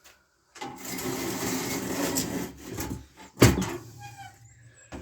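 Workshop handling noise as the scooter engine is readied for dismantling: about two seconds of continuous rattling and scraping, then one sharp knock about three and a half seconds in.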